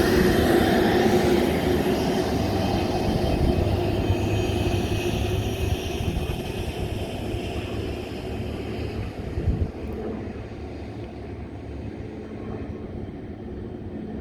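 Supermarine Spitfire Mk XIV's Rolls-Royce Griffon engine running as the plane passes and flies away, its sound steadily fading and growing duller.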